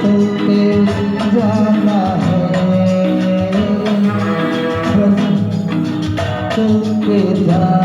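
Music from a Hindi song: a held, gliding melody line, likely a voice, over a steady accompaniment with light percussion.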